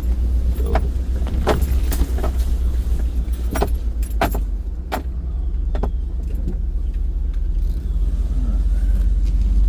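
Ford pickup truck driving slowly on a muddy road, heard from inside the cab: a steady low engine and road rumble with scattered sharp clicks and rattles in the first half, the rumble growing louder near the end.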